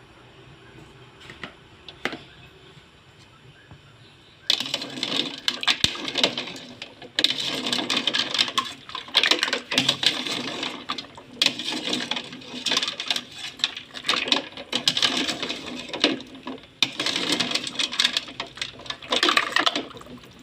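Clam shells clattering and rattling against each other and against metal as they are handled in the pot. It is a dense, irregular run of sharp clicks, and it starts loudly about four seconds in after a few faint clicks.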